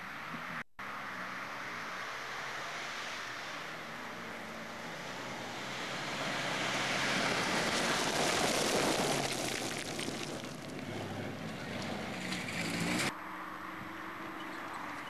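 Off-road competition vehicle's engine revving, its pitch rising and falling, under a rushing noise that swells to its loudest about eight to nine seconds in as the vehicle comes close. The sound breaks off abruptly near the end, leaving a steadier engine note.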